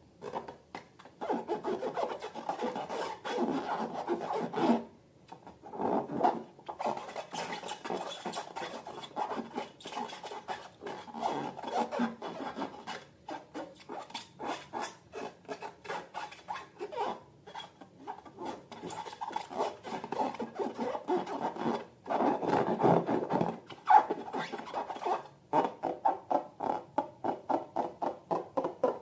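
Slime being squished and stretched by hand, giving a steady crackle of small sticky clicks and squelches. Near the end it turns into a fast, even run of separate clicks.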